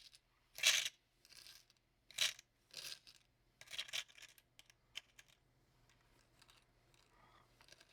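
Loose small glass beads clinking and rattling in short bursts, about one a second, as they are scooped and poured into a small container. The bursts thin out toward the end.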